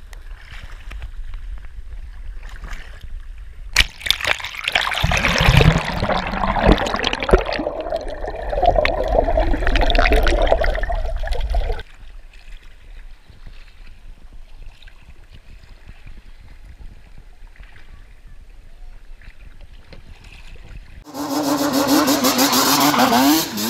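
Sea kayak paddling: water splashing and sloshing against the hull with wind on the microphone, loudest for several seconds in the middle and quieter after. Near the end this gives way to a Yamaha Banshee quad bike's two-stroke twin engine running and revving.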